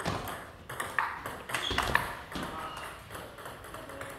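Table tennis rally: the ball clicking sharply off the bats and the table, about six quick knocks in the first two and a half seconds, then quieter.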